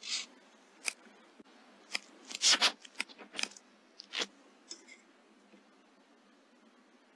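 A string of short, sharp mechanical clicks and knocks, the loudest a close pair about two and a half seconds in, over a faint steady hiss.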